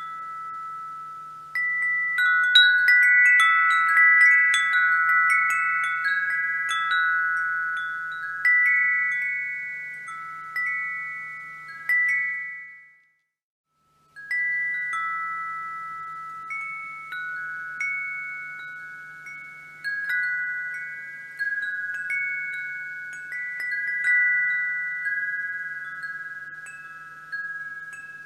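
Wind chimes ringing, their chimes struck irregularly so several high ringing notes overlap and slowly fade. The chiming stops dead for about a second near the middle, then resumes.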